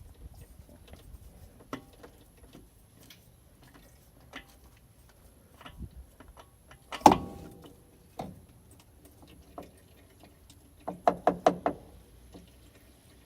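Clicks and knocks of hands and a tool working the oil filter loose under a Kawasaki Mule: scattered light taps, one loud knock about seven seconds in, and a quick run of about six clicks near the end.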